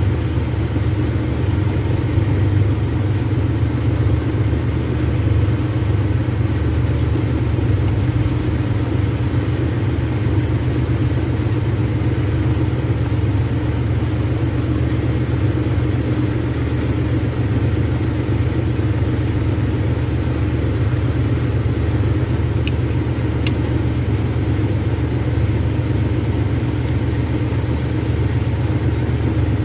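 A motor or engine running at a steady drone, with two short clicks about three-quarters of the way through.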